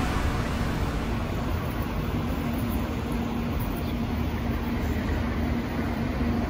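City street traffic noise: a steady rush of road and vehicle sound with a low, steady hum running under it.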